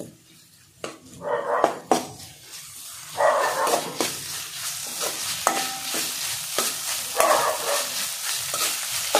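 Slotted metal spatula stirring and scraping sliced onions and green chilli as they fry in oil in an aluminium kadai, with a steady sizzle and a few sharp knocks of the spatula against the pan. The sizzle gets louder from about three seconds in.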